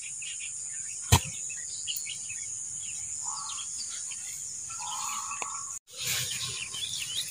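Outdoor ambience: a steady high-pitched drone of insects with scattered bird chirps. One sharp click about a second in, and a brief gap in the sound near the end.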